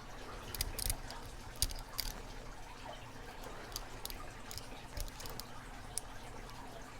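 Faint, irregular metallic clicks and scratches of a snake rake and tension tool working the pins inside an Abus 8345 padlock, with a few sharper clicks scattered throughout.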